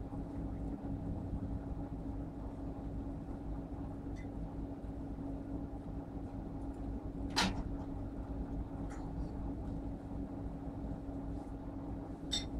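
Steady low mechanical hum holding one tone over a rumble, with a single sharp click about seven seconds in.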